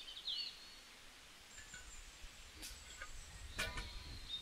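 Faint birds chirping, short glides at the start and thin high calls later, over a low rumble. Two short sharp clicks come in the second half.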